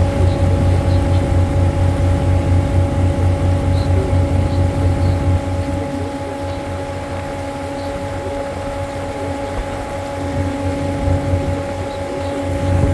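Engine of a river cruise boat running, with a steady low rumble and a steady hum above it. The rumble is louder for the first five seconds, eases off, then swells again near the end.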